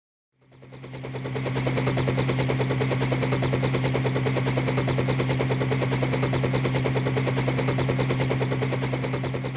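Sustained rapid machine-gun fire, a dense even stream of roughly ten shots a second over a steady low hum. It fades in over the first second and a half and starts to fade near the end, like an intro sound effect.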